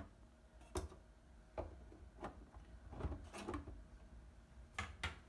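3D-printed PLA crate panels knocking and clicking as the box is handled and set down over the engine onto its base: a series of light plastic knocks, the last two close together near the end.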